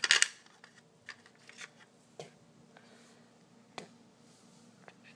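Small plastic toy pieces being handled and set down on a plastic playset: a quick cluster of clicks and taps at the start, then scattered single light clicks about a second apart.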